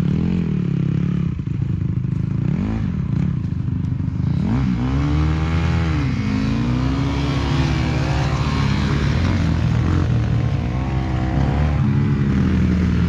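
Four-stroke dirt bike engines running and revving up and down with the throttle, the pitch swinging repeatedly; from about four seconds in it gets louder with a rushing noise over it.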